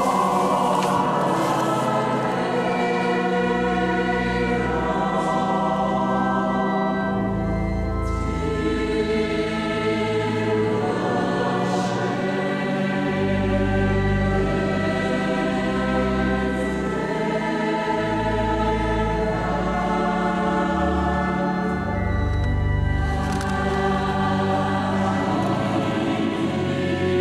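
A choir singing slow, long-held chords, echoing through a large stone cathedral.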